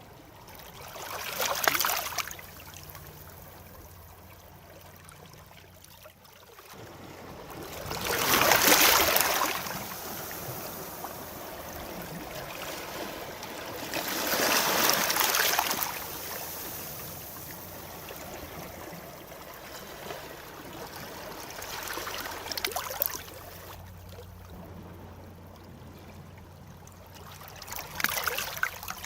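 Sea waves breaking on a shore, each wave rising to a crash and washing back, with about five waves coming in, the loudest near the middle.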